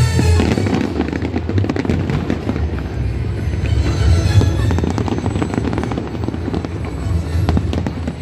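Aerial fireworks bursting and crackling in rapid, irregular succession, many sharp cracks and pops, with music playing underneath.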